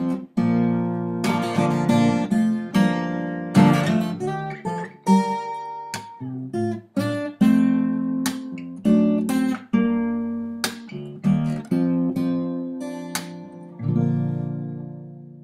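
Acoustic guitar music: strummed and picked chords in a steady rhythm, with a last chord a little before the end that rings out and fades.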